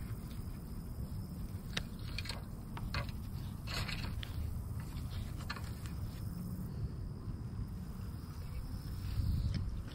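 A spinning reel worked by hand during a retrieve: a few scattered light clicks over a steady low rumble.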